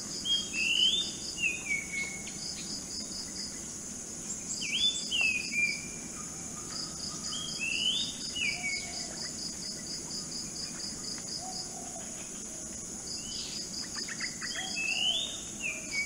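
Oriental magpie-robin singing: four or five short phrases of whistled notes that slur downward, a few seconds apart. Behind it, a steady high insect hum and repeated trains of rapid insect pulsing.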